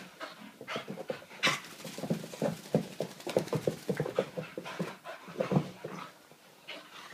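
Wheaten terrier puppy panting in quick short breaths as it wrestles with a towel, excited after a bath, with the towel rustling and scrubbing against its fur and the carpet.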